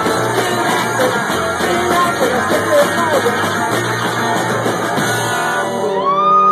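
Live punk rock band playing: distorted electric guitar, bass, drums and a shouted vocal. Near the end the drums and strumming stop and a held, ringing guitar tone with a few sliding pitches is left as the song ends.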